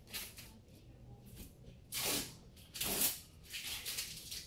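Masking tape being peeled off a wall in several short tearing pulls, the two loudest about two and three seconds in.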